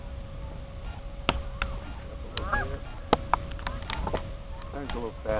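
Geese honking, with one call about halfway through and a run of calls near the end. Underneath are scattered short clicks, a steady faint hum and a low wind rumble.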